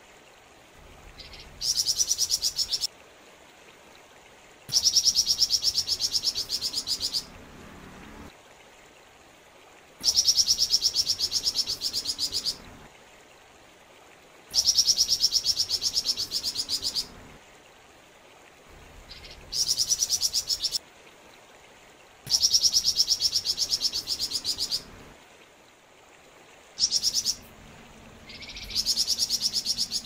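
Male flamboyan bird singing: fast, high-pitched trilled phrases, most lasting two to three seconds, repeated about eight times with short pauses between them. A stream runs faintly in the pauses.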